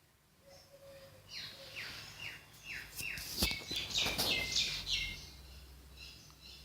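A bird chirping: a quick series of short, falling notes, about three a second, for a few seconds. A sharp click about three and a half seconds in.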